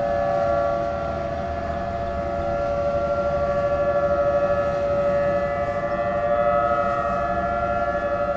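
Outdoor tornado warning sirens sounding during a test. They hold a steady pitch with several notes at once, and the level slowly swells and fades.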